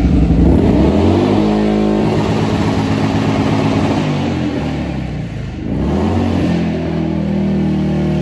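A motorcycle engine revved and held at raised speed, easing off about five seconds in, then revved up and held again.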